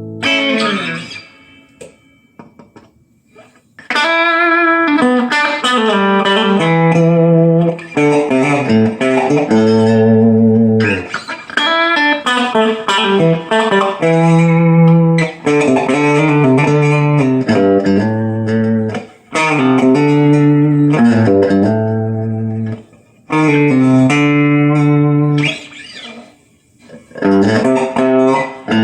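Electric guitar played through an Artist TweedTone20R amplifier: ringing chords in phrases, broken by short pauses.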